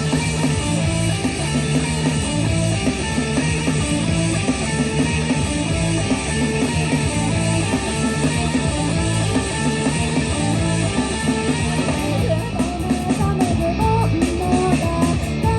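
Rock band playing live in an instrumental passage with guitars to the fore. About twelve seconds in, a steady cymbal beat comes up clearly.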